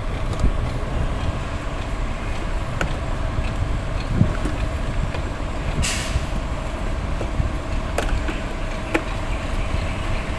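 HOWO heavy truck's diesel engine running steadily, with a short hiss of air from the air system about six seconds in and a few light clicks.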